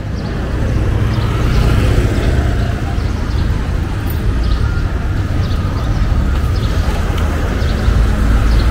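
City street traffic: a steady, dense rumble of passing vehicles and engines.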